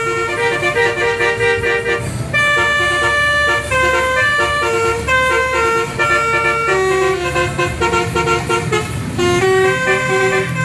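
A bus's telolet basuri melodic horn set playing a quick tune of short, clear notes over the low sound of the bus's engine.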